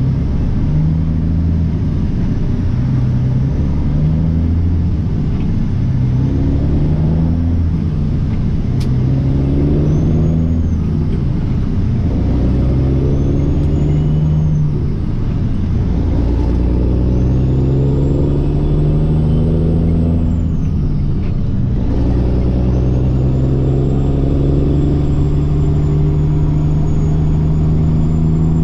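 Peterbilt truck's diesel engine pulling up through the gears: the engine note climbs and drops back with each of several shifts, then holds a steady note for the last several seconds. A faint high whistle rises and falls above it.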